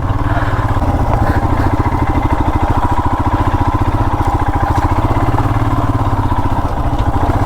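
Royal Enfield Himalayan's single-cylinder engine running steadily under way, with an even, fast pulsing beat.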